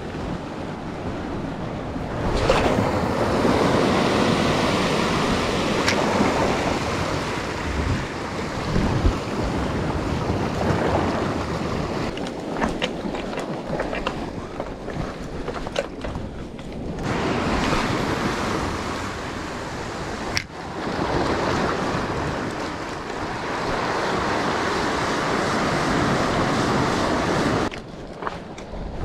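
Surf washing over a rocky shore in long swells that rise and fall, with wind on the microphone and a few short clicks.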